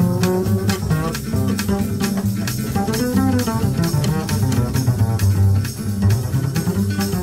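Two double basses playing a jazz duet, plucked with many quick, closely spaced notes over low bass tones.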